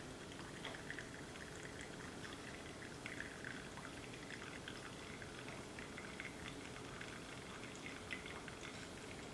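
Single-serve coffee maker slowly brewing hot coffee into a cup over ice: a faint steady trickle and drip with scattered small crackles.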